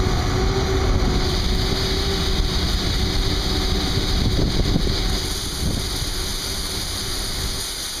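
John Deere combine harvester running close by, a steady low mechanical rumble with wind noise on the microphone; a higher hiss grows stronger about five seconds in.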